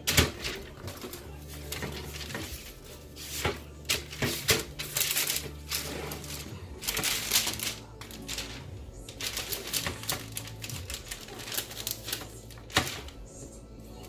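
Parchment paper crackling and rustling irregularly as raw bacon slices are pulled apart and laid out on it, with a couple of sharper crinkles near the start and near the end. Background music plays underneath.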